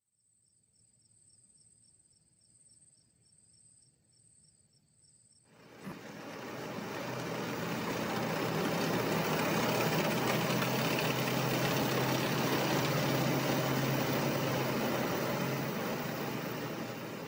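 Faint crickets chirping steadily at first. About six seconds in, the loud, steady run of a BMPT-72 Terminator 2 tank support vehicle's engine and tracks takes over, swelling as it drives past and easing off near the end.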